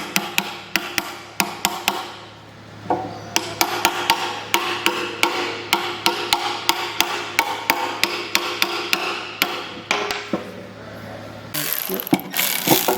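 Repeated light hammer taps on metal, about three or four a second, as a side bearing carrier is tapped into the differential housing. Near the end a louder rushing noise joins in.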